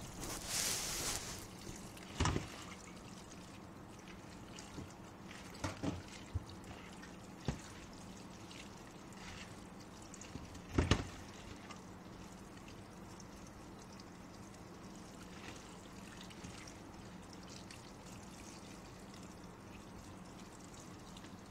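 Kitchen tap running steadily onto Malabar spinach leaves in a metal colander as they are rinsed, water pouring and trickling. A brief louder splash comes near the start, and a few sharp knocks come through, the loudest about eleven seconds in.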